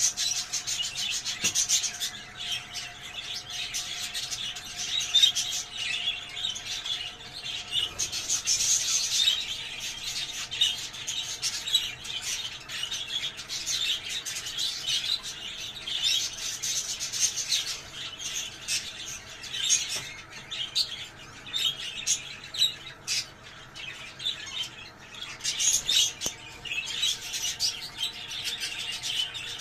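Budgerigars chattering and warbling without pause, a dense run of overlapping chirps, squawks and clicks.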